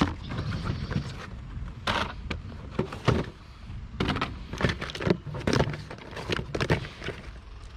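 Irregular knocks and clunks, about a dozen of them, over a steady low rumble.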